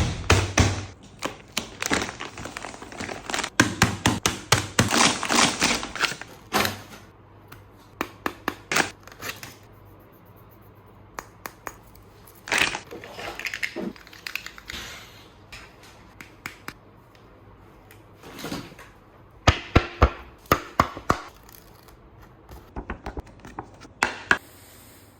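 Packaging crinkling and rustling as a blind bag is torn open and its contents handled. The crinkling is dense for the first several seconds, then gives way to scattered sharp taps and clicks with short bursts of rustling.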